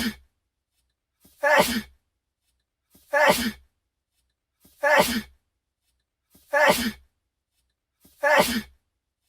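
A young man's sneeze, a short intake of breath followed by a sharp 'achoo', looped over and over at an even pace of about one every 1.7 seconds, about six times.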